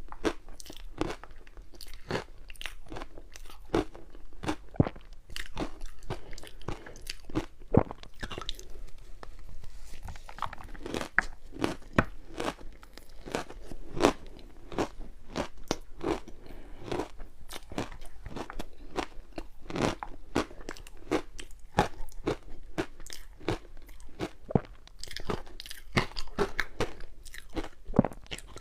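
Ice being bitten and chewed close to the microphone: a dense, irregular run of sharp crunches and cracks.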